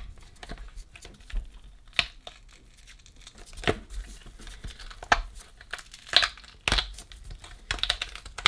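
Adhesive tape and foam crackling and tearing, with several sharp plastic clicks spread through, as the button panel is worked free of a JBL Xtreme 3 speaker's housing.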